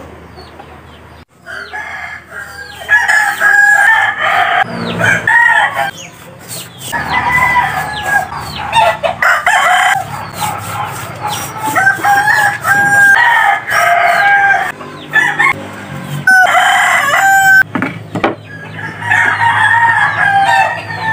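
Roosters crowing again and again: long pitched calls, one after another, starting about a second in, with chickens clucking between them.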